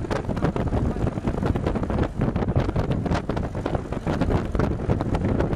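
Open WWII Jeep's four-cylinder engine running while driving, heard under heavy wind buffeting on the microphone.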